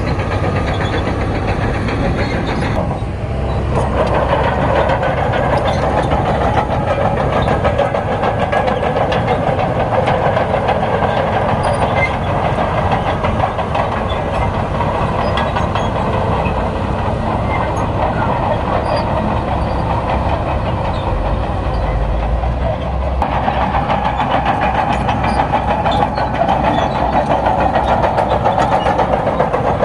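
Crawler bulldozer working, its diesel engine running hard while the steel tracks clank continuously. The engine note rises about three seconds in, eases off, and rises again about twenty-three seconds in.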